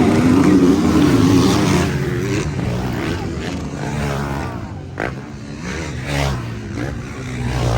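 Several motocross bikes racing on the track, their engines revving up and down in overlapping pitches, loudest in the first couple of seconds.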